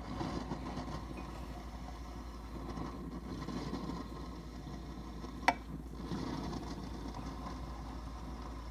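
Low steady background hum with soft, uneven low noise, and one sharp click about five and a half seconds in.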